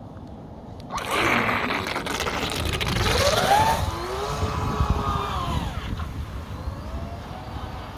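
Aquaholic RC speedboat's electric motor whining up suddenly about a second in as the boat takes off at speed, with a hiss of water. The pitch glides up and down as throttle and steering change, and the sound fades as the boat runs away.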